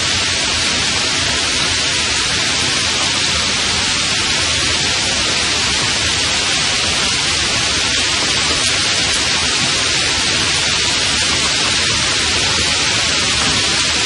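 Light rain falling, a steady, even hiss with no thunder.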